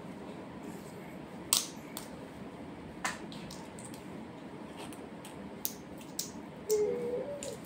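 Scattered sharp clicks and small taps of hands handling a hot glue gun and small craft pieces, the loudest about a second and a half in. Near the end a baby babbles briefly.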